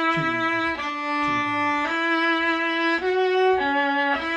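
Viola playing a slow melody in long bowed notes, moving to a new pitch about once a second.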